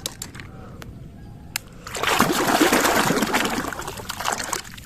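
Water splashing and sloshing as a muddy toy is washed by hand, starting about two seconds in and fading out about two and a half seconds later, after a few light clicks of the toys being handled.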